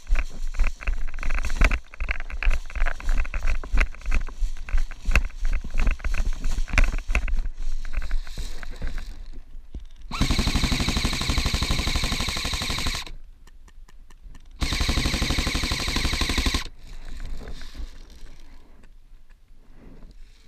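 Airsoft electric gun firing two long full-auto bursts, the first about three seconds and the second about two, with a short pause between them. Before that there are irregular knocks and rustling from movement.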